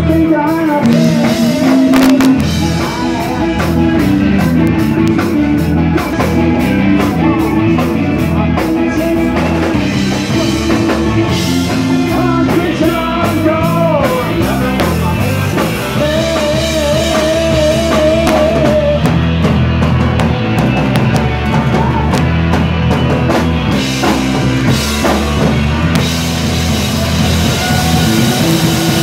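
Live skabilly band playing rock music with electric guitars, bass and drum kit, and a held wavering melody line near the middle.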